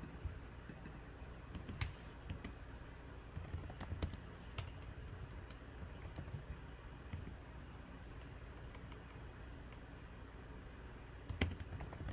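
Computer keyboard and mouse clicks, scattered in small clusters with pauses between, over a low steady hum.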